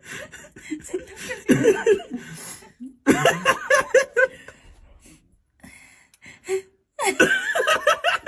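A person laughing hard in three loud fits of rapid, pulsing laughter, with quieter stretches between.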